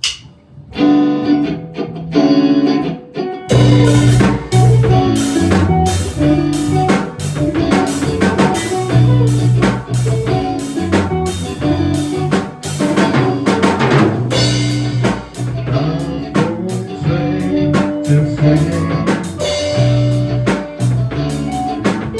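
Instrumental intro of a rock song: a guitar plays chords alone for a few seconds, then drums and bass come in with the full band about three and a half seconds in.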